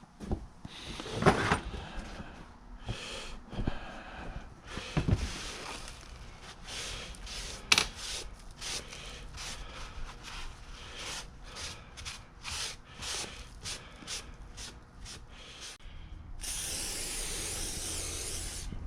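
A run of short rubbing and scraping strokes on metal vise parts, then about two seconds of steady hiss from an aerosol can of dry lube spraying, stopping abruptly near the end.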